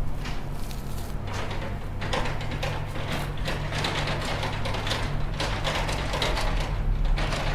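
A steady low engine hum from running machinery, with irregular metallic knocks and rattles over it.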